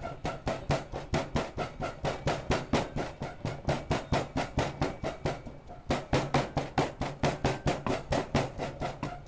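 Wooden pestle pounding a Khmer spice paste of lemongrass, chili and turmeric in a mortar, a steady run of dull knocks about four to five a second.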